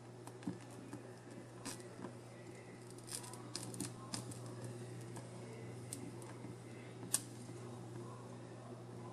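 Faint, scattered clicks and ticks as mullet roe is held in tongs and toasted over a plate of burning sorghum liquor, over a steady low hum. The clicks come in a cluster a few seconds in, with one sharper click later.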